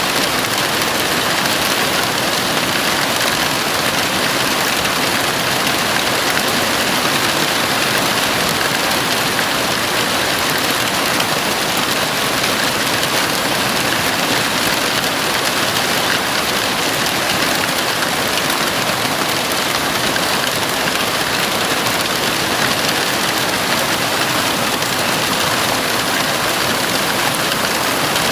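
Heavy rain falling steadily on a house roof: a dense, even hiss with no let-up and no thunder.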